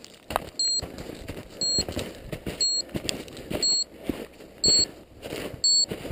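Avalanche transceiver in search mode giving short, high beeps about once a second as it homes in on a buried beacon, with scuffing noises between the beeps.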